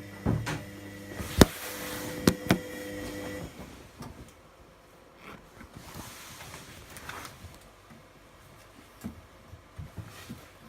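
A laundry machine's steady electrical hum with several sharp clicks over it, the hum cutting off about three and a half seconds in; after that, fainter scattered clicks and knocks.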